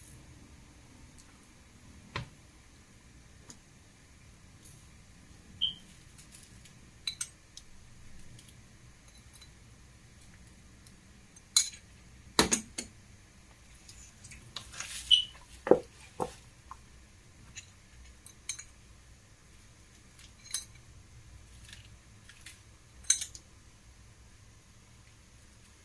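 Kitchen dishes and utensils clinking and clicking as they are handled, in scattered single knocks with a couple of short rings. The clinks come thickest about halfway through.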